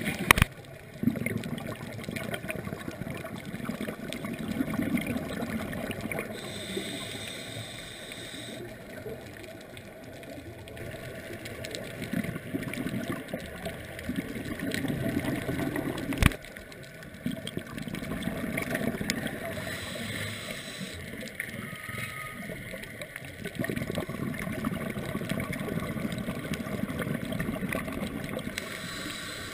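Underwater sound picked up by a diver's camera: bubbling and gurgling that swells and fades every few seconds, typical of a scuba diver's exhaled regulator bubbles. Two sharp knocks stand out, one near the start and one about halfway through.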